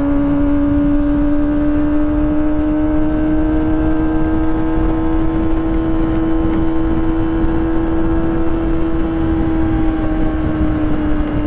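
Kawasaki ZX-25R inline-four with a Prospeed Shark high-mount exhaust, running at a steady high-revving cruise under way. The note climbs slightly, then eases off near the end, with wind rush underneath.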